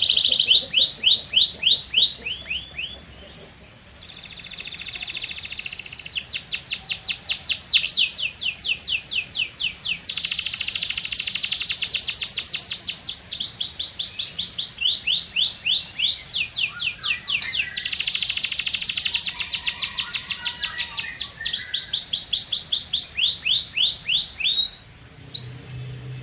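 Canary singing a long song of rapid trills, each a quick run of the same high sweeping note repeated many times, switching to a new trill every second or two. The song drops quieter for a few seconds near the start, then carries on loud until it breaks off shortly before the end.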